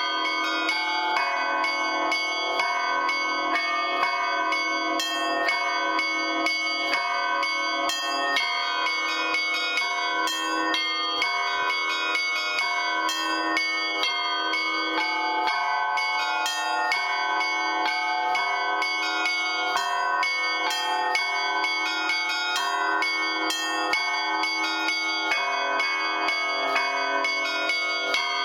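Russian Orthodox-style church bell ringing (zvon) on eight old bells cast by the Lavrov, Olovyanishnikov and Shuvalov foundries: a large main bell (blagovestnik), four middle podzvon bells and three small zazvon bells. Many bells ring over one another in a fast, unbroken pattern of strikes that runs on without a pause.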